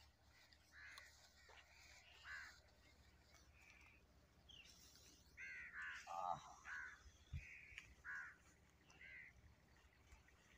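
Crows cawing, faint: a dozen or so short, harsh caws at irregular intervals, bunched most closely about halfway through.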